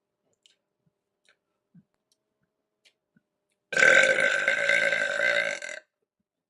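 A woman's single long, loud burp lasting about two seconds. It starts a little past the middle, holds a steady pitch and cuts off abruptly.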